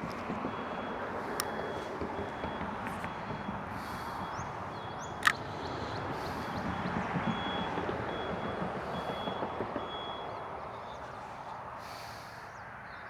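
Road traffic noise with a vehicle's reversing alarm beeping repeatedly at a high pitch, and one sharp click about five seconds in.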